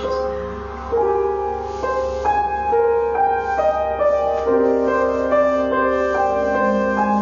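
Keyboard playing a slow, gentle melody of held notes that overlap and change about every half second, over a steady low hum.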